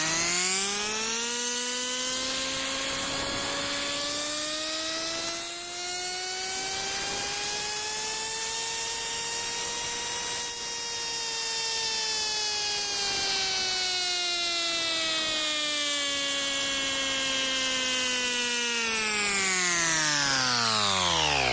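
Vogma Imecha battery-powered portable tire inflator's motor-driven compressor running as it pumps up a car tire toward a 35 PSI target. Its hum climbs steadily in pitch for about ten seconds, then falls back over the next ten.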